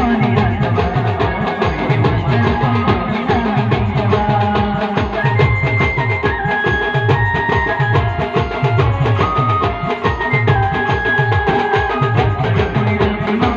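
Band music: a fast, driving drum rhythm with a melody of held notes stepping up and down over it.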